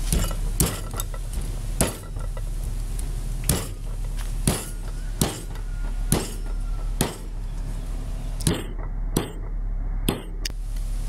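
Knife chopping on a round wooden chopping board: single sharp strokes at an uneven pace, about one a second.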